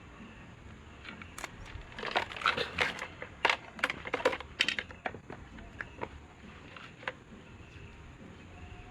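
A quick flurry of sharp clicks and clatters of hard objects knocking together, densest from about two to five seconds in, then a few scattered clicks.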